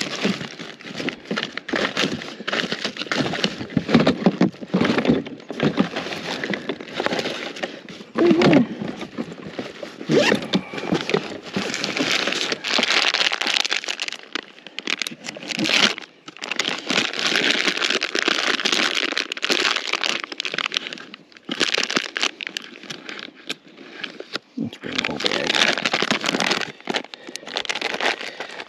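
Close, irregular crinkling and rustling with scattered clicks and cracks: fishing hooks and tackle being handled.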